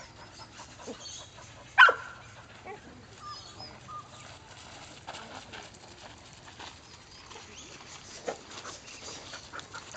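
Kelpie herding dog gives one short, loud bark about two seconds in while working sheep.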